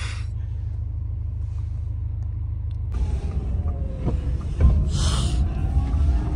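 Low rumble of tyre and wind noise during a ride in a small electric car. It grows louder and rougher about halfway through, with faint gliding tones and a short hiss about two seconds later.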